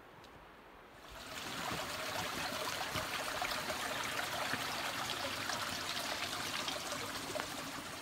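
Small mountain creek running and trickling over rocks. It comes in about a second in and then runs on steadily.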